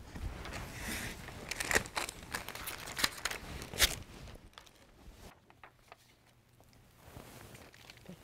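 Rustling and shuffling with a few sharp knocks as people sit down at tables, along with paper being handled; it falls mostly quiet about halfway through.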